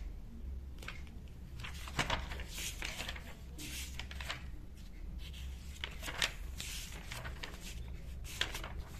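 Pages of a book being turned by hand: paper rustling and flipping in several separate turns.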